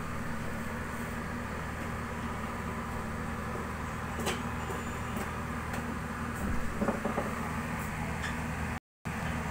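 Ice maker machine running with a steady low hum and hiss, with a few light knocks and clicks around the middle. The sound cuts out briefly near the end.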